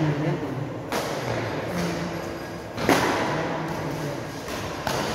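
Badminton rally in a hall that echoes: sharp racket hits on the shuttlecock about every two seconds, three in all, with voices in the background.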